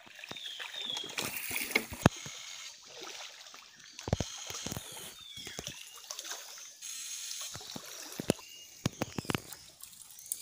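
Shallow creek water sloshing and splashing as people wade through it and grab at fish, with scattered sharp clicks and knocks.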